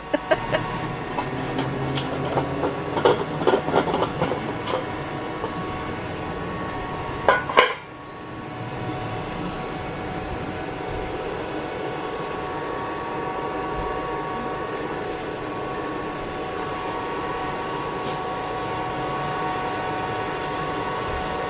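Homemade aluminium-melting furnace running with a steady rushing noise and a faint steady whine. Metal clinks and knocks over the first few seconds, and a loud clatter comes about seven seconds in.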